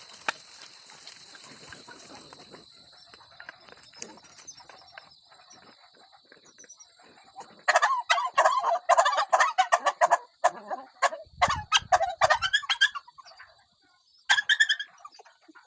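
Chickens clucking and cackling in a loud run of rapid calls for about five seconds, starting midway, with one more short call near the end.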